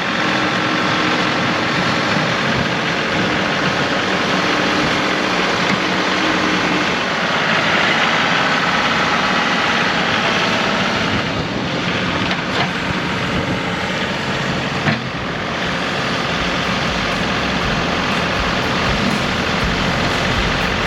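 Compact tractor's diesel engine running steadily, with a short sharp knock about fifteen seconds in.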